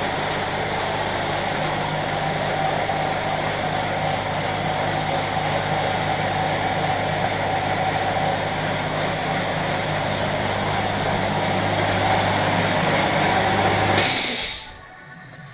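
Piston air compressor motor running steadily, then shutting off near the end with a short sharp hiss of air, typical of the unloader valve releasing as the tank reaches cut-out pressure.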